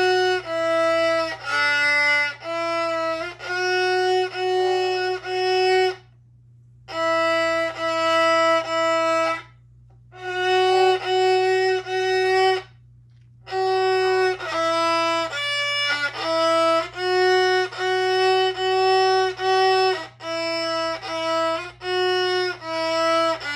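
Solo violin playing a simple tune, one held note after another, in phrases broken by short pauses.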